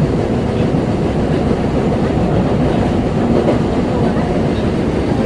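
Osaka Metro 20 series subway train running, heard from inside the car: a steady rumble of wheels on the rails. The set's wheels have severe flat spots, according to the recordist.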